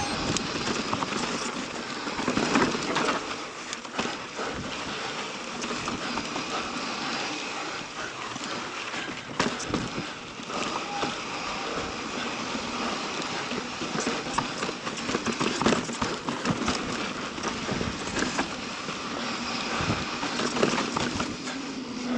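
Mountain bike rolling fast down a rough dirt and rock trail: tyres running on the ground and the bike rattling, with frequent sharp knocks and clatters from bumps.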